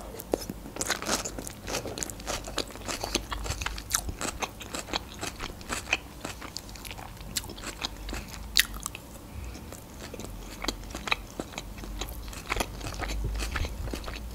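Close-up chewing of a Caesar salad made with Chinese cabbage: crisp, wet crunches and mouth clicks, several a second and irregular.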